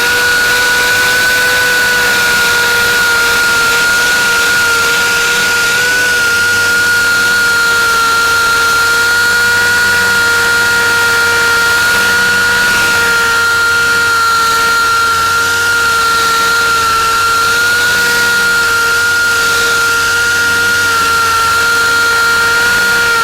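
Sanding machine with a 2000-grit pad running at steady speed, a loud even whine, sanding a plastic headlight lens wetted with water.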